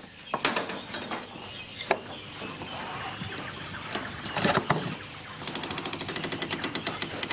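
An orangutan handling a door's lock and fittings: scattered knocks and clicks of metal and wood, then a fast, even rattle from about five and a half seconds in.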